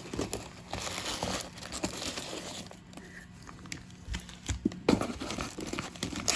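Crinkling and rustling of the plastic and foil wrapping on baseball card packs being handled and opened, with scattered sharp clicks and taps.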